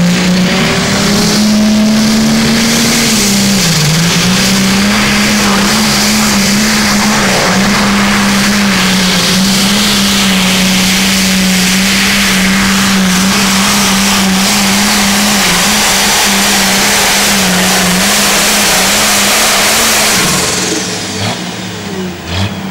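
Pro Stock pulling tractor's diesel engine held at full throttle under load as it drags the weight-transfer sled, a loud steady engine note that sags briefly about four seconds in. The engine shuts off near the end.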